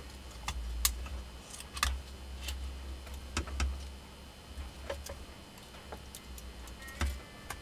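Scattered small clicks and taps of copper winding wire being tamped into the slots of an angle-grinder armature during hand rewinding, with a faint low rumble of handling.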